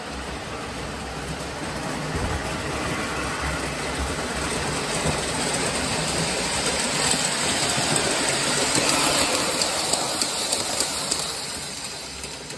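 O scale model train running on its track: the wheels rumble on the rails over the hum of the electric motor. It grows louder toward the middle, with a few light clicks at its loudest, then fades near the end.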